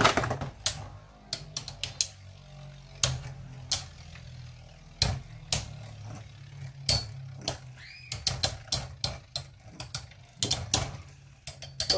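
Two Metal Fight Beyblade tops, Hades Kerbecs and Leone, spinning in a plastic stadium with a steady low whir. Sharp clacks mark them striking each other, a few at first and then in quick runs near the end.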